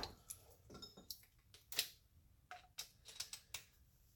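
Light clicks and clinks of small hand tools and metal parts being handled on a workbench, about ten irregular taps that stop shortly before the end.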